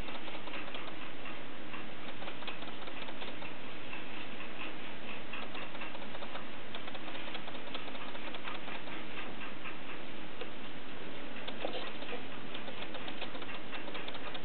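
Fleischmann class 211 model diesel locomotive and its freight wagons running on model track: a steady rattle of many fast, irregular clicks as the wheels roll over rail joints and points.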